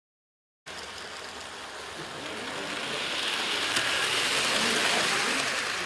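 Model train rolling along the track past the microphone: a steady rattle of wheels on rail that cuts in abruptly, builds to its loudest around the middle and eases off as it passes.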